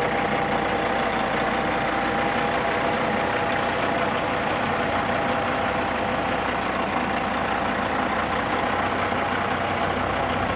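Engine running steadily, an even drone that holds the same pitch throughout.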